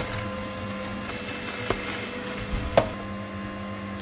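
Aicok slow masticating juicer's electric motor humming steadily as its auger grinds a celery stalk. Two sharp cracks from the celery being crushed break through, a faint one about a second and a half in and a louder one near three seconds.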